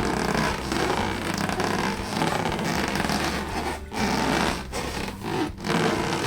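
Latex balloons being rubbed and squeezed: a dense scraping rustle, broken by a few short gaps near the end.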